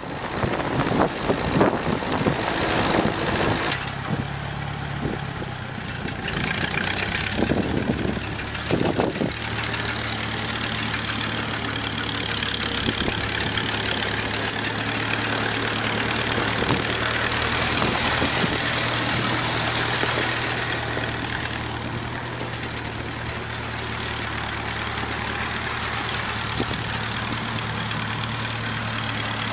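Ford 2N tractor's four-cylinder flathead engine running steadily at low speed as the tractor drives and steers on snow. The first few seconds are rougher, with wind buffeting the microphone and a few knocks before the engine hum settles in.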